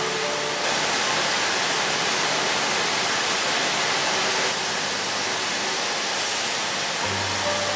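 Steam hissing steadily from the standing Peppercorn A1 Pacific steam locomotive 'Tornado', a loud even rush that gets stronger about half a second in and eases slightly a few seconds later.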